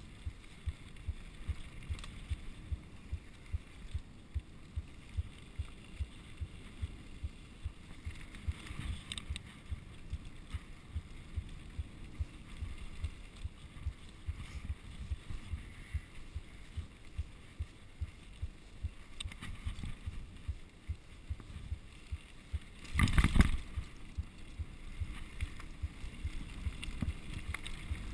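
Mountain bike rolling down a bumpy dirt singletrack, with frequent short knocks and rattles from the bike and camera mount as the wheels hit the trail's bumps. Near the end comes one much louder clattering jolt lasting under a second.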